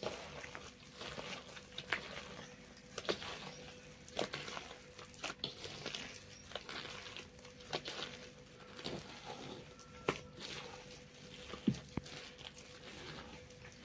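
Thick ground urad dal batter being beaten by hand in an aluminium bowl: soft wet slaps and squelches, roughly one a second, at an uneven pace. A faint steady hum sits underneath.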